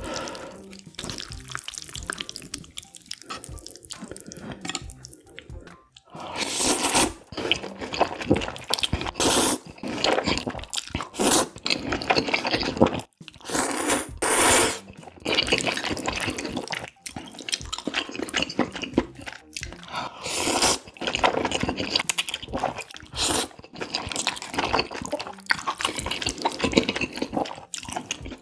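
Knife-cut noodles in spicy broth slurped up in loud draws, again and again, starting about six seconds in, with quieter chewing between.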